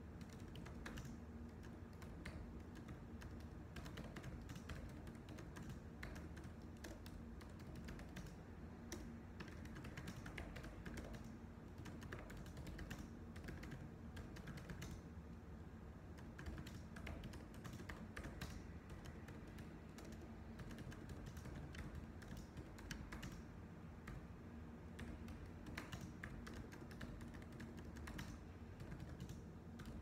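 Faint computer keyboard typing: a continuous run of light, irregularly spaced key clicks.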